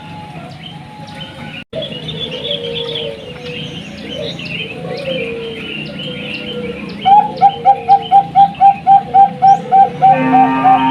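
A chorus of perkutut bangkok (zebra doves) cooing over one another, with higher bird chirps mixed in. About seven seconds in, one bird starts a loud, rapid run of repeated coos, three to four notes a second. The sound drops out briefly just under two seconds in.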